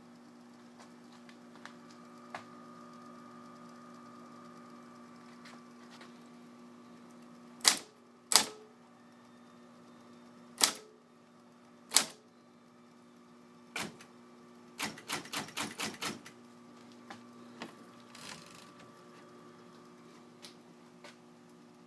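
Smith Corona Sterling Cartridge electric typewriter with its motor humming steadily. Four loud, widely spaced typing strikes come in the middle, then a quick run of about six strikes, with lighter clicks scattered between.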